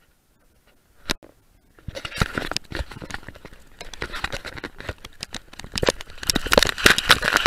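Hand-held action camera rustling and crackling as it is carried at a run across sand, with a dense run of irregular knocks and thuds from handling and footfalls. A single click comes near one second, the noise starts about two seconds in, and it gets louder near the end.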